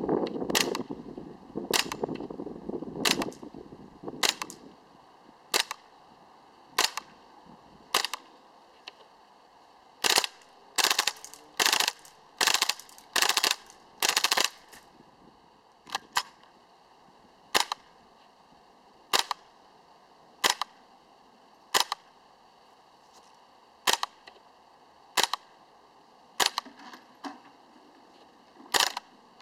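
G&G Combat Machine M4 gas blowback airsoft rifle firing: sharp single cracks a second or two apart, with a quicker run of shots in the middle.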